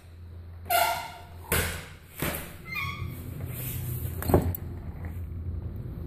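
A door being opened and shut: two short squeaks, a couple of knocks, and a sharp latch click about four seconds in. Under it runs a low steady hum from a neighbouring business's machines.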